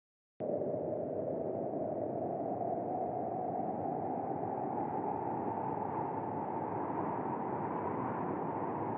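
A steady, muffled rushing noise with no tune or beat, cutting in abruptly about half a second in and holding level throughout.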